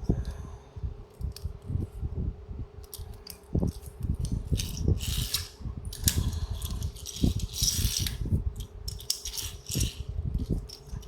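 Small die-cast toy cars and their cardboard boxes being handled: many light clicks, taps and knocks, with bursts of crinkly rustling a few times, over a steady low hum.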